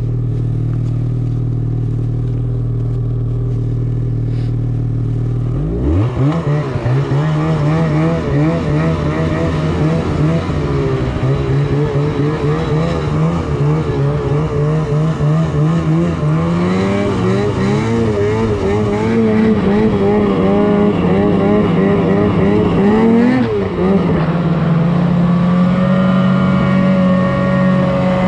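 Snowmobile engine idling steadily, then about six seconds in revving up sharply as the sled pulls away. Its pitch rises and falls with the throttle while riding, with a brief dip about five seconds before the end before it climbs again.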